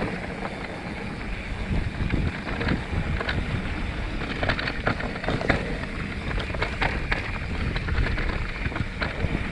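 Mountain bike riding down a packed-dirt forest trail: steady wind noise on the microphone and tyre noise, with frequent short clicks and rattles from the bike over the bumps.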